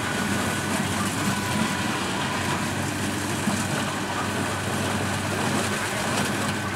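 Kubota DC-70 Plus combine harvester's diesel engine running steadily under load while cutting rice, a continuous low drone with a thin steady high whine over it.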